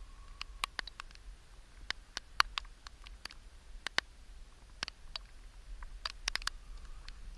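Irregular sharp clicks and ticks of handled fishing gear rattling as it is carried along, at times several a second, over a constant low rumble.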